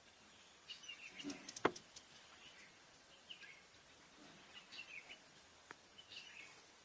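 Faint, scattered bird chirps and short calls, with a sharp click about a second and a half in and a smaller one near the end.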